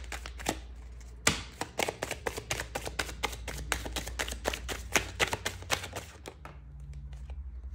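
A deck of tarot cards being shuffled by hand: a rapid run of card snaps and taps, thinning out after about six seconds.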